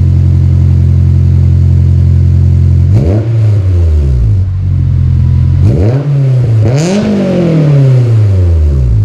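Honda S2000's four-cylinder engine breathing through a Skunk2 MegaPower cat-back exhaust, idling steadily, then revved: one blip about three seconds in, then two more in quick succession, the last dropping back to idle near the end.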